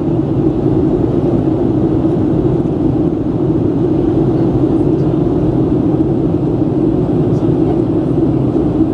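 Steady cabin noise inside a Boeing 737 in flight: an even low hum of jet engines and rushing airflow, heard from a window seat over the wing.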